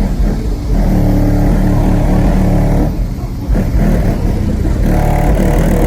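A Chevrolet Avalanche pickup's engine running loud, held at a steady pitch for a couple of seconds, easing off briefly about three seconds in, then held again.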